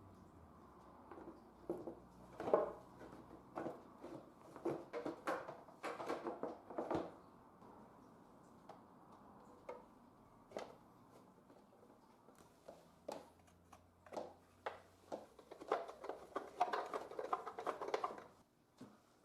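Irregular clicks, knocks and clatter of hard objects being handled, in two busy spells: from about two to seven seconds in, and again from about thirteen to eighteen seconds in.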